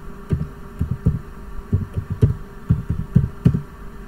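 Computer keyboard typing: about a dozen dull, muffled keystrokes at an uneven pace over a faint steady hum.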